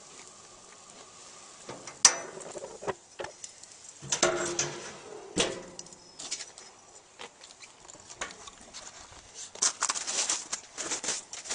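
Footsteps crunching through snow, a quick run of crackling steps near the end. Before them come a sharp knock and a few clattering handling sounds.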